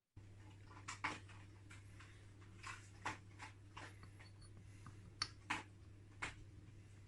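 Faint, irregular light clicks and taps, about a dozen scattered over several seconds, over a low steady hum.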